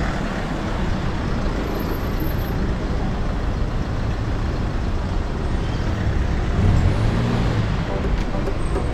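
Street traffic: a steady noise of passing vehicles, with a heavy engine rumble growing louder about two-thirds of the way through.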